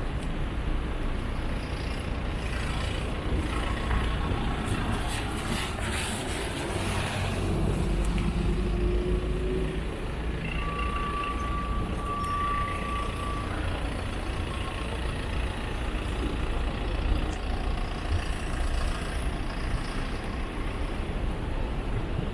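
Street traffic dominated by the low rumble of a heavy truck's engine. There is a burst of hissing about six seconds in, and a steady high beep near the middle that lasts about three seconds.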